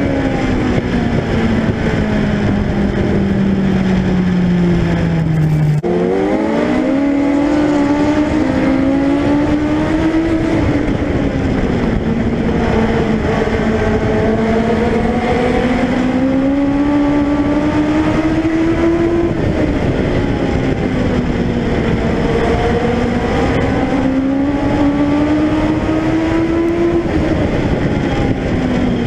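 Legend car's Yamaha motorcycle engine at racing speed, heard from on board, its pitch climbing and falling in long sweeps every eight seconds or so as the driver goes on and off the throttle around the oval. About six seconds in the note drops low and then jumps sharply back up.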